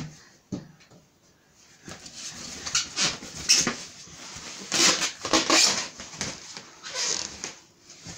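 Latex balloons squeaking and rubbing against one another in irregular bursts as a toddler clambers about among them in a wooden crib, with the loudest bursts a couple of seconds in and around the middle.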